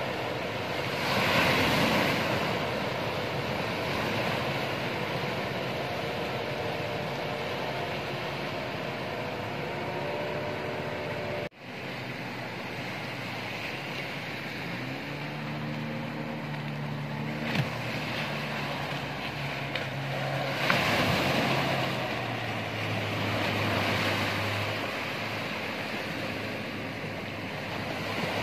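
Ocean surf washing and breaking on the shore, with waves surging louder about a second in and again near 21 s. Partway through, the engine of a small wooden outrigger fishing boat runs with a steady low hum as the boat passes.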